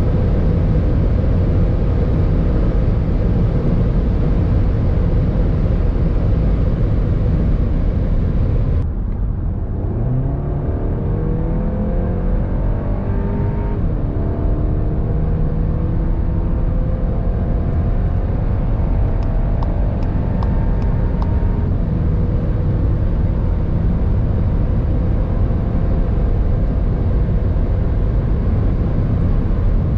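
Cabin sound of a CUPRA Ateca's 2.0-litre turbocharged four-cylinder running flat out near its top speed of about 245 km/h in sixth gear: a steady engine drone under a dense wash of wind and road noise. About nine seconds in, the sound cuts to a hard acceleration, with the engine note climbing through fourth gear, dropping at an upshift, and climbing again in fifth past 200 km/h.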